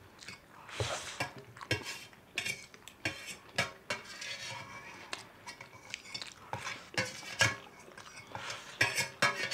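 Spoons and forks clinking and scraping against stainless steel plates at irregular moments, mixed with noodles being slurped, as the last of the noodles are scraped up from a nearly empty plate.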